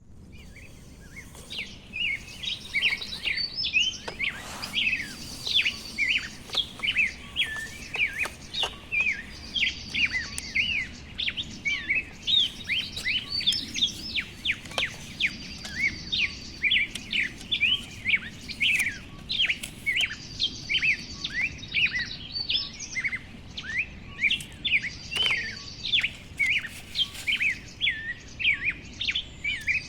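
Small birds chirping in quick, overlapping calls, starting about a second and a half in.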